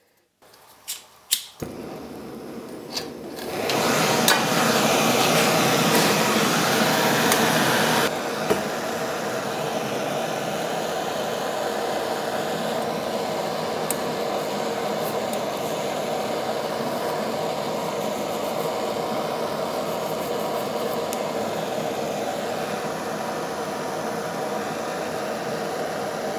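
Small gas canister stove: a couple of sharp clicks, then the burner lights about a second and a half in and hisses steadily. The hiss is louder for a few seconds, then settles a little lower and holds steady.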